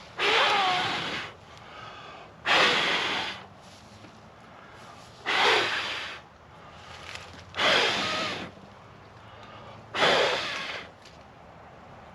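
A person blowing hard on a campfire's tinder to coax it into flame: five long blows about two and a half seconds apart, each followed by a quieter breath in.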